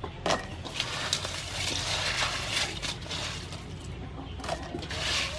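Hands lifting pieces of blue crab out of a steel bowl of crushed ice: the ice crunches and rattles, with several sharp clicks.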